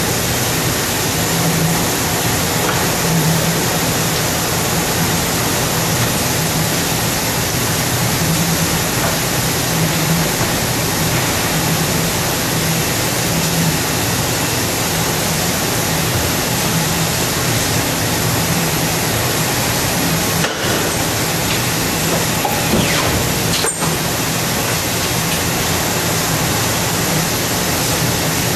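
Wohlenberg 137 paper cutting line running: steady, loud machine noise with a low hum that swells every second or two.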